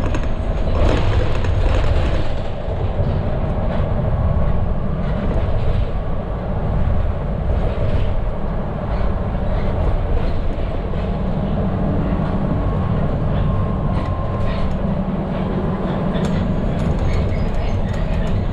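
Medium bus cab interior noise while driving at around 60 km/h: a steady low rumble of engine and road noise, with scattered light clicks and rattles from the cab.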